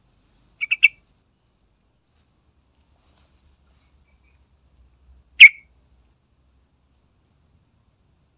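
Yellow-vented bulbul calling: three quick, sharp chirps just under a second in, then one loud, sharp single note about five seconds later.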